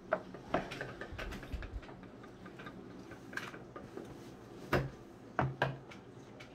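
Scattered light clicks and taps of handling at a table, with three sharper knocks about five seconds in.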